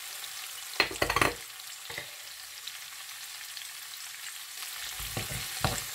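Spiced potato cubes sizzling gently in a pan on a low flame, a faint steady hiss. A wooden spatula knocks and scrapes against the pan about a second in and again several times near the end.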